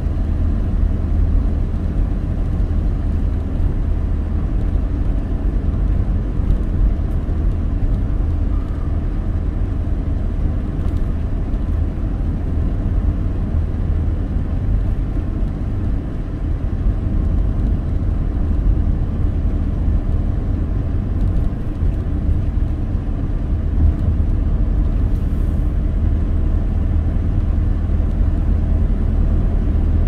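Steady low road and engine rumble heard from inside a car's cabin while it drives along at a constant pace.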